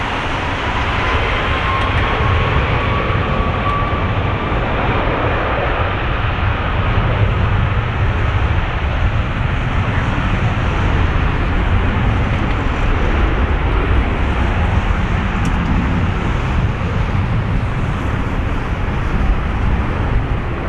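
Airbus A330-300's Rolls-Royce Trent 700 turbofan engines running at taxi power as the airliner turns onto the runway: a steady rumble and rush of jet noise, with a faint whine rising in pitch over the first few seconds.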